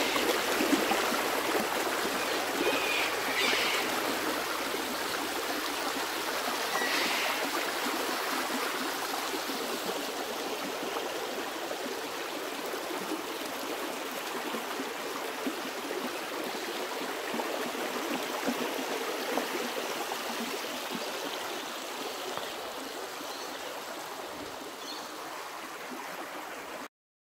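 Creek water running and trickling over rocks, a steady rushing that eases slightly over time and cuts off suddenly near the end.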